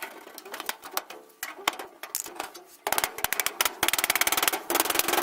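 Scattered clicks and knocks of sheet metal being handled, then a handheld power tool on the metal in short bursts of very rapid clicking, starting about three seconds in.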